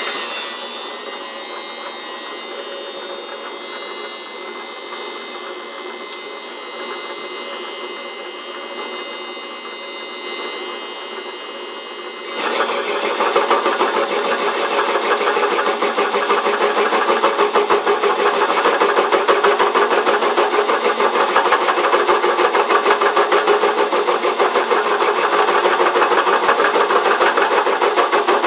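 Homemade belt-driven metal lathe running with a steady whine. About twelve seconds in the sound turns louder and rougher with a fast, even pulsing, as the cutting tool bites into the workpiece.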